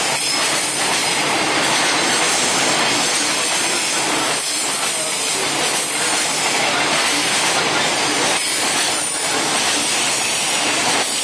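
Long container freight train rolling steadily past, its wheels on the rails making a continuous noise.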